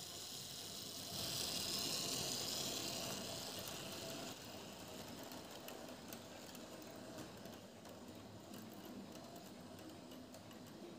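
Fleischmann H0 model of a Prussian T3 steam locomotive and its coaches running on model track: an electric motor's whine and the rattle of small wheels on the rails, loudest from about one to four seconds in as the locomotive passes close, then dropping to a quieter rumble as the coaches roll by and away.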